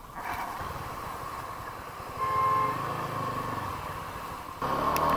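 Road traffic passing on a wet highway: vehicle engines running, a horn sounding briefly a little over two seconds in, and near the end a vehicle passing close, its engine note falling as it goes by.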